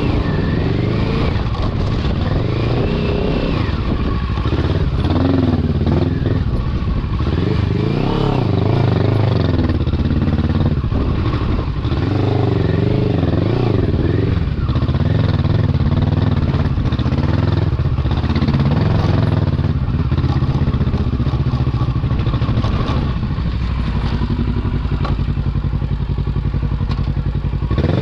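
Kawasaki Versys 650's parallel-twin engine running under way at low revs, its note rising and falling with the throttle as the bike rides a rough dirt track.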